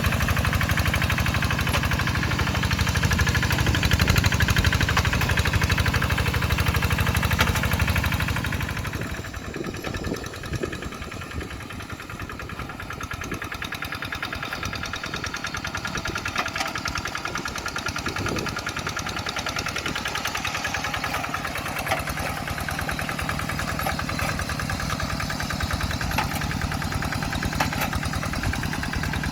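Single-cylinder Kubota RD85DI-2s diesel engine of a Quick Zeva G3000 two-wheel hand tractor running steadily. About eight seconds in it becomes quieter, with less low rumble, and then runs on at the lower level.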